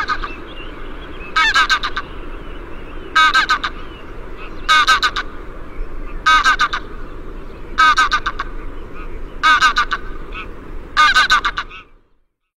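A kitten mewing loudly over and over, a call about every second and a half, seven in all, over a steady background hiss.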